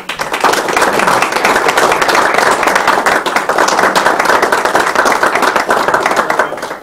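Audience applauding: many hands clapping together, swelling in quickly at the start, holding steady, then dying away near the end.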